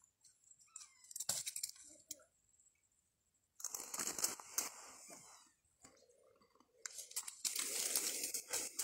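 Dry leaves, twigs and brush crunching and rustling underfoot, in irregular bursts of crackling.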